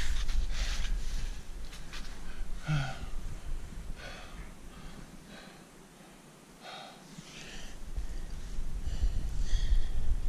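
A climber breathing hard with effort: short, irregular breaths about every second or two, softer around the middle. A low rumble on the microphone comes and goes beneath them.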